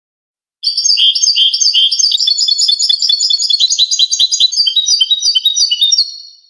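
European goldfinch singing: a fast, continuous twittering run of short tinkling notes that starts about half a second in and fades out near the end.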